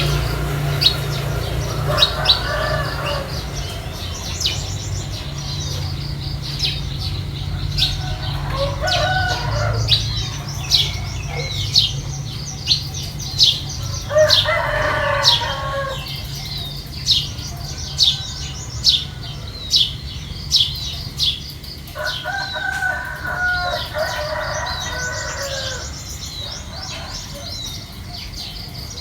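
Roosters crowing four times, each crow lasting a second or two, over a steady stream of quick high chirps from small birds. A faint low hum underneath fades out about halfway through.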